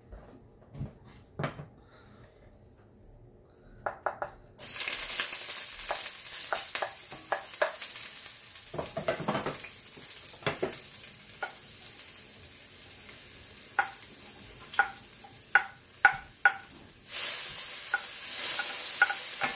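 Minced ginger and garlic dropped into hot canola oil in a stainless steel wok start sizzling suddenly about four and a half seconds in, after a few light knocks. A wooden spoon stirs and clicks against the wok while they fry, and the sizzle grows louder near the end.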